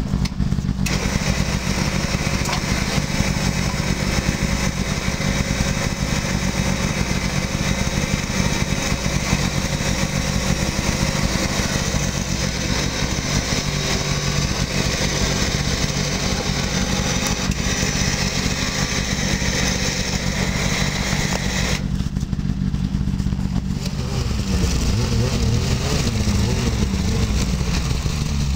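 An engine runs steadily. Near the end the sound changes to a snowmobile engine whose pitch rises and falls as it is ridden.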